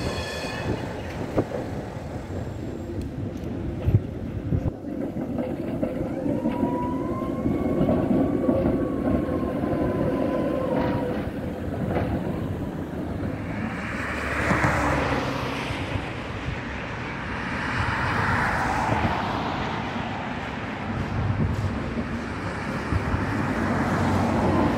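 Electric trams running on city street track amid traffic. A motor whine rises and holds for several seconds in the first half, and a louder rush of wheels on rails comes in the second half.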